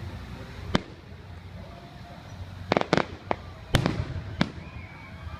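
Fireworks exploding in sharp bangs: one about three-quarters of a second in, then a quick run of five between about two and a half and four and a half seconds in. The loudest come near the middle of that run.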